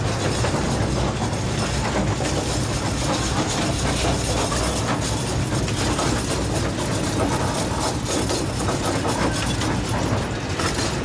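Steady running noise of a 15-inch-gauge miniature train, heard from aboard its open passenger cars: wheels rolling on the rails over a low, steady engine hum.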